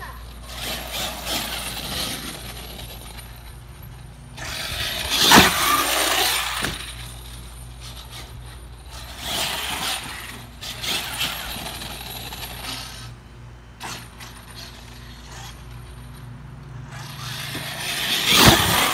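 Traxxas X-Maxx RC monster truck with an 800KV brushless motor on a Castle Mamba Monster X 8S controller, accelerating in bursts across grass. Sharp knocks about five seconds in and again near the end, where the truck hits the ground after a jump off the ramp.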